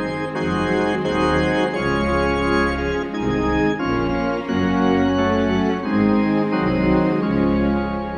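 Instrumental introduction to a hymn played on an organ-voiced keyboard: sustained chords over a bass line, the chords changing about every second or so.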